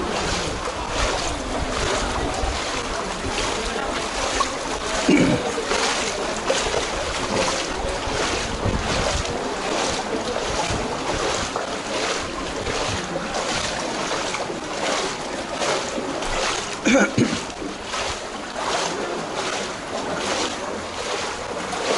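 Feet wading through shin-deep floodwater, a slosh and splash about twice a second, with two brief louder sounds about a quarter of the way in and again about three-quarters through.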